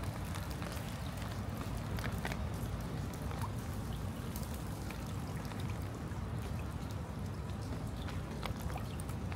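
Rain falling, with many scattered drops ticking close by over a steady low rush.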